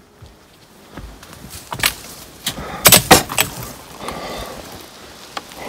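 Handling noise from a handheld camera being moved and turned around: rustling, with a cluster of sharp knocks and clicks around the middle.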